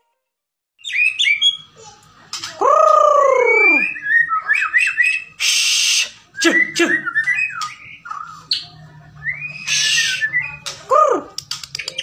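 Bahorok white-rumped shama (murai batu) singing a varied song, starting about a second in. Quick whistled and chirping phrases are mixed with two loud, long whistles that slide downward and two harsh rasping notes.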